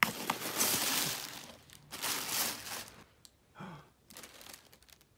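Tissue paper crinkling and rustling as it is pulled out of a cardboard gift box, in two long stretches over the first three seconds, followed by a brief falling voice sound.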